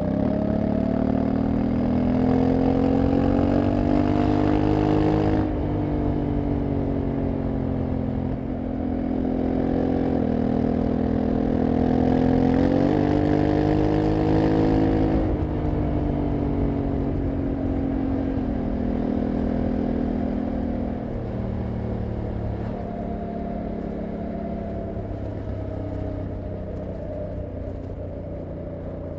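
Honda CRF1100L Africa Twin's parallel-twin engine pulling hard under acceleration, its note climbing, stepping down at a dual-clutch upshift about five seconds in, then climbing again. About fifteen seconds in the throttle closes and the note falls and quietens as the bike slows, with wind rush at speed.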